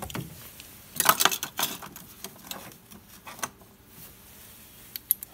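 Metal hand tools clinking: Torx bits and a ratchet handled and set down on the engine, with a quick cluster of sharp clinks about a second in, then a few scattered clicks.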